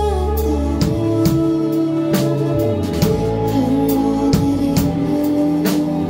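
Live band music: a woman's lead vocal over electric guitar and a drum kit keeping a steady beat of about two hits a second.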